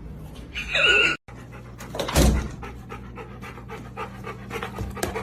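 A dog panting with quick, even breaths. It is preceded about a second in by a brief, loud, high-pitched sound that cuts off abruptly.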